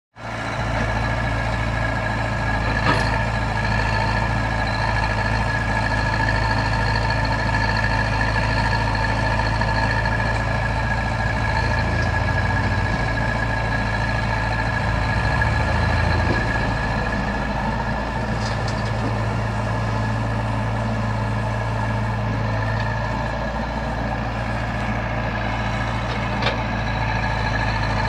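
Tata Hitachi EX 70 excavator's diesel engine running steadily, with a low hum and a steady high whine over it. A sharp knock sounds once about three seconds in and again near the end.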